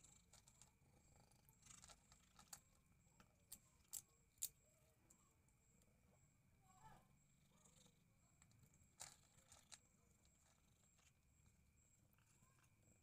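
Faint crunching and clicking of a calico cat chewing dry kibble and fried milkfish from a plastic bowl: scattered sharp crunches, a few close together around two to four seconds in and again near nine seconds.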